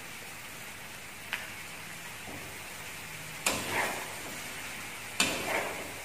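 Noodles and greens sizzling steadily as they are stir-fried in a steel wok on a gas stove. A metal spatula clicks against the wok about a second in, then strikes and scrapes it louder twice, at about three and a half and five seconds.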